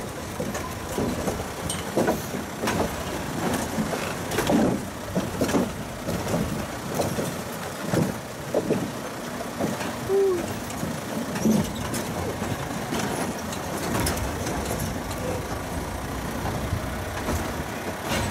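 Open safari vehicle driving. The engine runs and the body rattles, with repeated knocks and bumps through the first half as it goes over a wooden pole bridge. After that it runs more steadily on a sandy dirt track.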